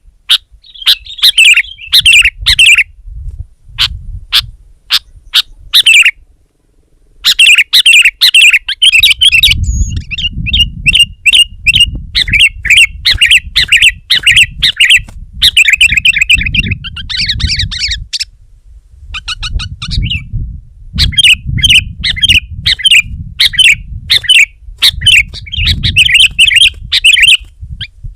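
Sooty-headed bulbul calling energetically: bursts of rapid, loud, chattering notes repeated almost without pause, broken by brief gaps twice, with a low rumble underneath at times.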